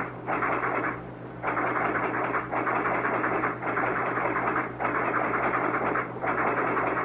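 Fire alarm telegraph equipment clattering as signals come in, in spells of about a second with short breaks between them, over a steady low hum.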